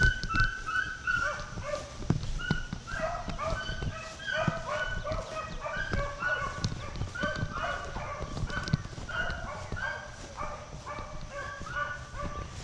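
A pack of beagles baying in the brush while running a rabbit: many short, overlapping cries at several pitches, kept up without a break.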